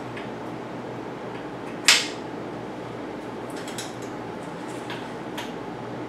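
Metal clinks from hand work on a bicycle's drivetrain: one sharp clack about two seconds in, then a few lighter clicks, over a steady background hum.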